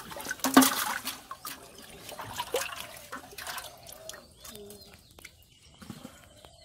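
Water splashing and sloshing in a clay pot as hands grab live red carp and lift them out, the biggest splash about half a second in, then smaller drips and splashes that die away.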